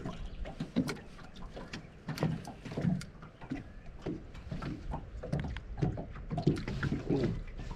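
Irregular small knocks and water slaps around a small fishing boat on a lake, over a steady low rumble.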